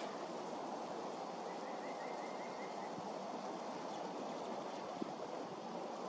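Steady outdoor rushing background noise. About one and a half seconds in comes a faint quick trill of about eight short high notes.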